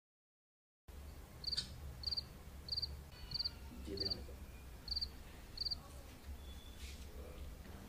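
Cricket chirping: seven short, high, trilled chirps about two-thirds of a second apart over a low hum, starting after about a second of dead silence.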